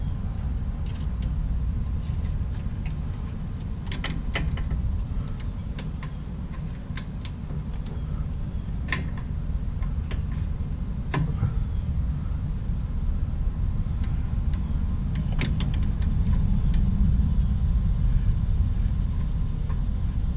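A few sharp metallic clicks and clinks of hand work on a mower transaxle's parts and linkage, scattered over a steady low rumble.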